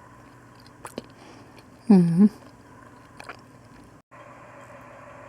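A woman chewing food, with a few soft mouth clicks, and a short voiced "mmm" of enjoyment about two seconds in, the loudest sound. Later, a steady faint background hum starts and stops abruptly.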